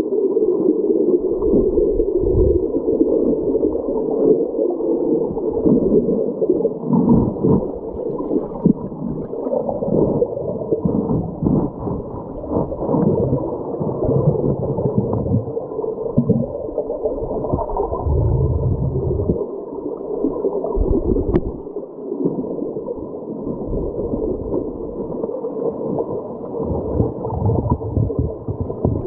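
Flowing creek water recorded underwater: a steady, dull gurgling rush with nothing high in it, broken by irregular low thumps of the current. There is one brief click about 21 seconds in.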